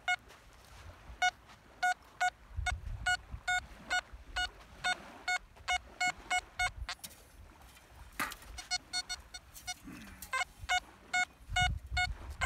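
XP ORX metal detector with an HF elliptical coil beeping as the coil is swept over the sand: a run of short beeps, all at the same pitch, two or three a second, each a signal from metal in the ground.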